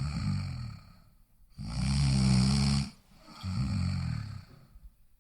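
Snoring in a slow, repeating breath cycle: a softer snore fading out just after the start, a loud rattling snore from about a second and a half to three seconds in, then a softer, breathier one, with the next loud snore beginning at the very end.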